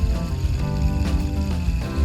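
Background music with a steady beat, about two beats a second, over sustained notes and a strong bass line.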